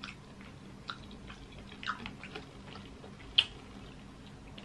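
Boiled crawfish being cracked and peeled by hand, with mouth noises of eating: scattered small wet clicks and crackles of shell, and one sharp crack about three and a half seconds in.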